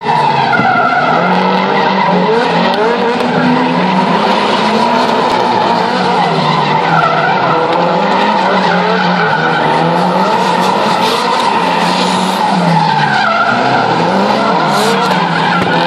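Drift cars sliding with their engines revving hard, the engine note rising and falling over and over as the throttle is worked, with tyres skidding and squealing throughout.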